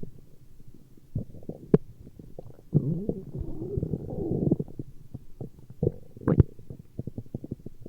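Stomach growling: a run of small gurgles and pops, with one long, wavering gurgle from about three seconds in to nearly five, and sharp clicks near two and six seconds.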